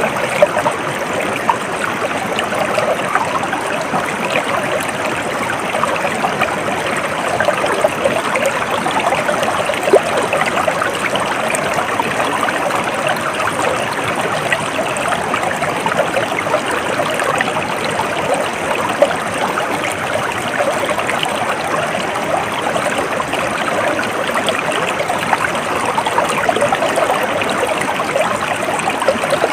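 A small stream flowing and trickling steadily, with constant bubbling and splashing.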